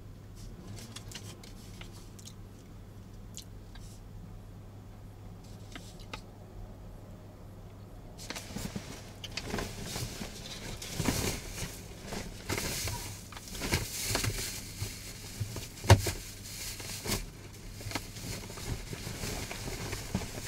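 Paper shopping bag rustling and crinkling as a hand rummages through it, starting about eight seconds in, with a sharp knock about halfway through. Before that there is only a low steady hum and a few faint clicks.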